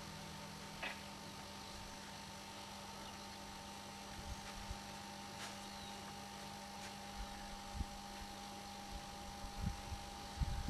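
A steady electrical hum, with a few short low thuds in the last three seconds.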